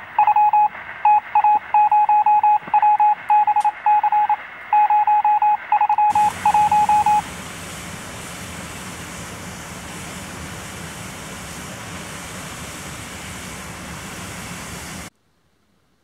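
Telephone line tones: rapid beeping tone pulses in uneven groups, then a steady open-line hiss with a low hum that cuts off suddenly near the end.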